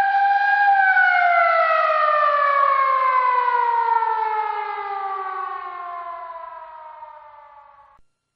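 A ballpark's motor siren, the kind Koshien Stadium sounds to open a high school baseball game. It holds one steady pitch for about a second, then winds down in a long falling tone and fades out shortly before the end.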